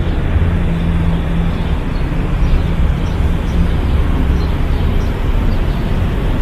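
Steady low rumble of motor traffic with the hum of an engine, which fades out a little after halfway.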